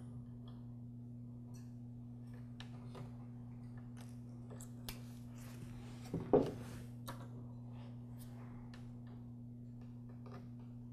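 Quiet handling sounds of crimping pliers and small metal spade connectors being worked onto wire ends: scattered light clicks and rattles, with one louder knock about six seconds in, over a steady low hum.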